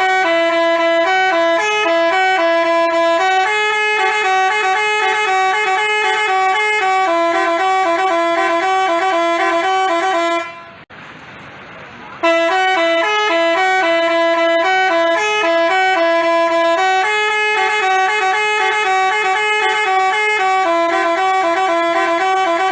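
Telolet basuri multi-tone bus horn playing a tune in loud, stepped notes. One phrase ends about ten and a half seconds in, and after a short break a second phrase starts.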